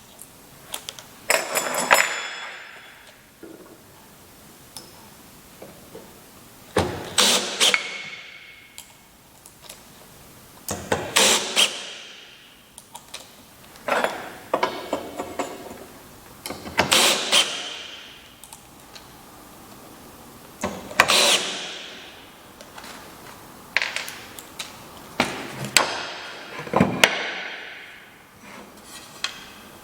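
Woodworking hand work: about eight short bursts of scraping and clattering against wood, each about a second long and a few seconds apart, with quieter workshop noise between them.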